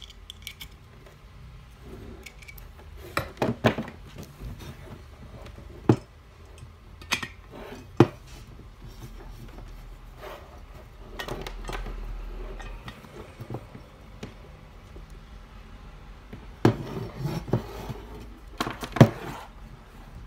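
Handling noise of a gas hose being fitted to an airsoft gas magazine and a gas bottle: the brass quick-release fittings click and knock against the plastic magazine and the metal can in short scattered taps.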